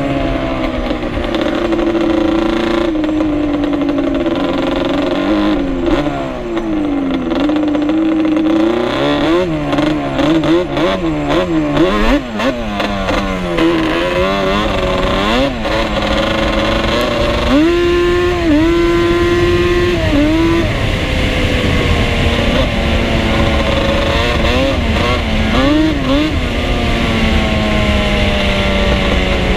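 Two-stroke sport ATV engine running on a trail ride, its pitch rising and falling with the throttle and shifts. There is a run of quick, sharp revs about eighteen to twenty seconds in.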